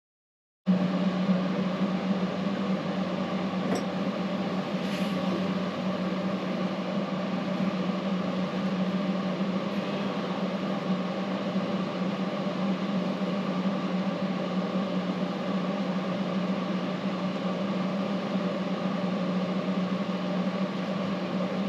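Steady machine hum, a low drone with fainter higher tones above it, unchanging throughout, with a couple of faint ticks a few seconds in. It begins after a split second of dead silence.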